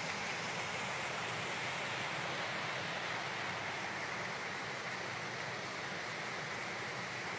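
Rainwater runoff rushing down a normally dry rambla, muddy water tumbling over rocks as a steady, even rush.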